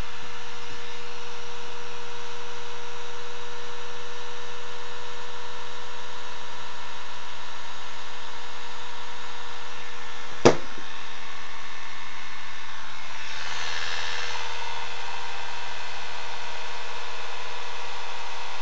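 Bedini motor built from a mini window motor running steadily, a constant electric hum and whine made of several fixed tones as its circuit pulses the coil. A single sharp click about halfway through, and a brief rustle a few seconds later.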